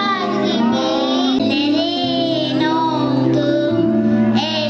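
A young girl singing a wavering, ornamented melody into a microphone over steady instrumental accompaniment with long held notes.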